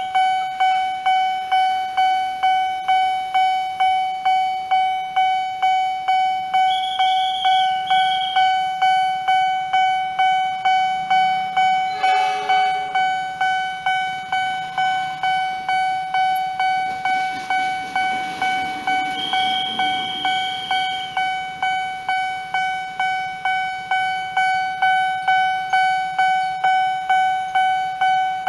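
Railway level-crossing warning bell ringing steadily, about two strikes a second, signalling that a train is approaching and the barrier is down. A short horn sounds once about twelve seconds in.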